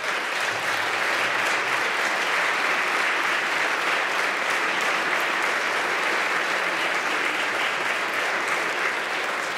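Crowd applauding steadily. It starts at once and begins to die down near the end.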